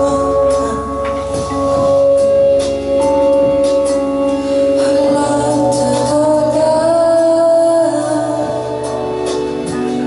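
Live song: a woman singing with her own electric keyboard accompaniment, the keyboard holding long sustained chords.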